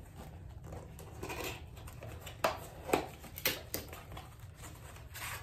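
A small cardboard box being handled, with light rustling and four sharp taps or knocks about halfway through.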